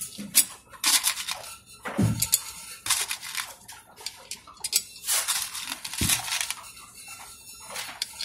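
Hands fitting a plastic pump head and a metal mounting bracket onto a small pump motor: irregular clicks, clinks and short scraping rustles of plastic and metal parts, with a dull knock about two seconds in and another around six seconds.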